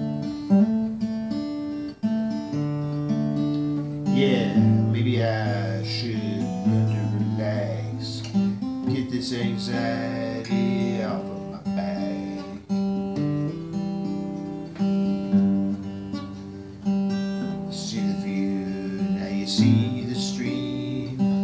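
Steel-string acoustic guitar played alone, strummed chords changing every second or two: the instrumental part of a folk song.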